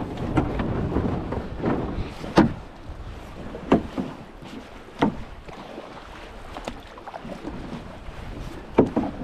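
Canoe being paddled: water rushing and splashing along the plastic hull, with sharp knocks and splashes of the paddle strokes every second or two.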